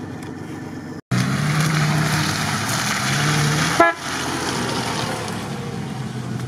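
Off-road vehicle engine running in the mud, starting suddenly about a second in, with a short horn toot just before the middle. The engine goes on more quietly after the toot.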